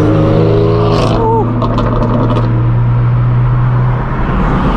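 Straight-piped BMW M4 F82's twin-turbo inline-six running steadily at cruise through a non-resonated AWE Track exhaust, a loud, even drone, dipping briefly about four seconds in.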